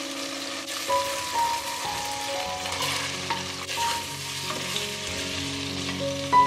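Chopped onion and garlic sizzling in the hot fat of a nonstick pot while a wooden spoon stirs them, over background music.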